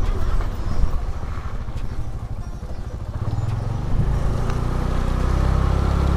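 Motor scooter engine running as it is ridden along, growing louder about halfway through as the rider speeds up.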